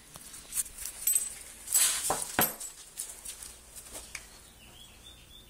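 Two dogs scuffling, a golden retriever puppy and a larger dog: a run of sharp knocks and scrapes, loudest about two seconds in. A thin, wavering high whine follows about four seconds in.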